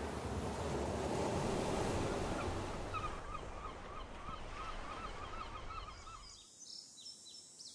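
Ocean surf rushing on a beach, fading out after about three seconds. Under it and after it comes a run of short repeated animal calls, about three a second, and a few faint high chirps near the end.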